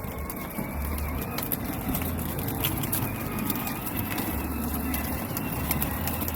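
Kids' battery-powered ride-on Jeep Wrangler driving over rough ground, with steady rolling noise and many small clicks and knocks from its plastic wheels and body.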